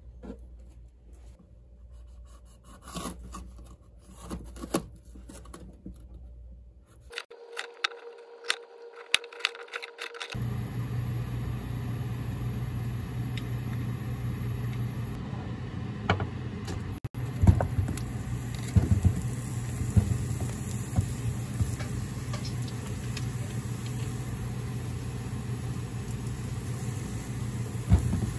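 Scattered soft clicks and taps, then from about a third of the way in a steady low machine hum with a light hiss, broken now and then by sharp knocks and clatter.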